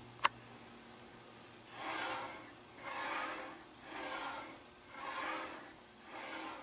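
A click, then a skate-sharpening machine's carriage slid back and forth by hand along its X-axis shaft: five rhythmic rubbing strokes about a second apart.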